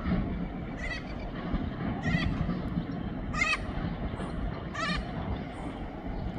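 Freight train wagons rolling past at a distance, a low steady rumble. Over it, a short high call repeats about every second and a half.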